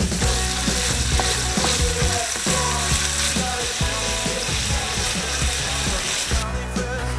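Diced bacon sizzling and crackling in a frying pan as it is stirred with a wooden spatula. The sizzle drops away near the end.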